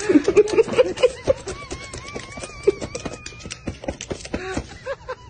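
Laptop keys clicking in quick, irregular taps under the feet of a white-bellied caique hopping on the keyboard, with a wavering whistled tone in the middle.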